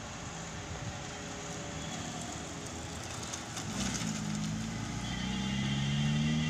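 A car passing close by and driving away: tyre and road noise, with its engine note coming in about four seconds in and rising slightly as it pulls away, loudest near the end.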